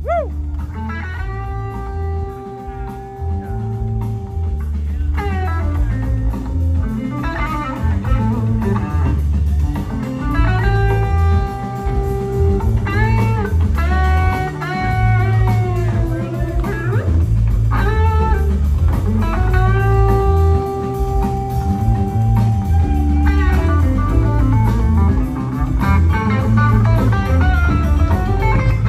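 Live blues-rock band playing an instrumental passage. An electric guitar lead holds long, bending notes over bass, drums and organ.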